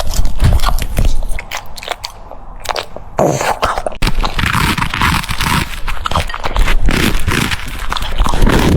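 French Bulldog chewing and crunching food in quick, noisy bites, with a short lull about a second and a half in.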